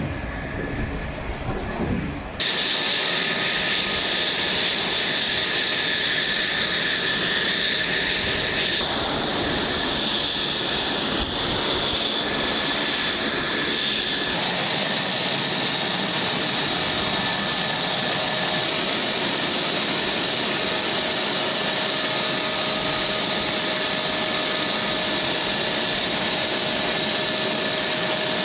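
F-16C Fighting Falcon's jet engine running at idle close by during hot-pit refuelling: a loud, steady, high-pitched whine. A lower rumble comes first for about two seconds, then the whine cuts in suddenly.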